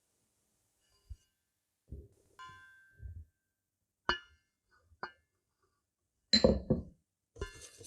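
Kitchen utensils clinking and knocking against mixing bowls in a few separate strikes, one with a short ringing tone, and a louder clatter near the end.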